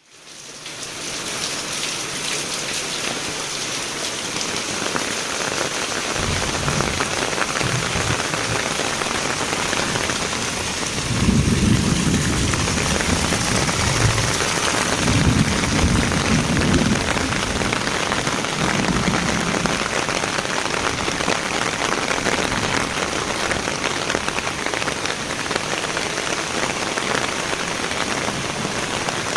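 Heavy rain pouring as a steady hiss, fading in over the first second. Midway there are several low rumbles lasting a few seconds each.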